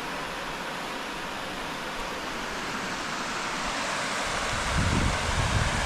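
Siskiwit River Falls rushing: steady waterfall noise that slowly grows louder. Near the end come a few low buffets on the microphone.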